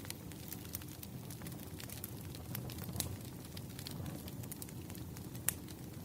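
Wood campfire burning with a steady low rumble of flames and frequent sharp crackles and pops, the loudest snaps about 3 seconds and 5.5 seconds in.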